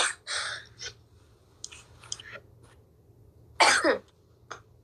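A woman coughing: a sharp cough at the start followed by a rougher one, then another loud cough about three and a half seconds in.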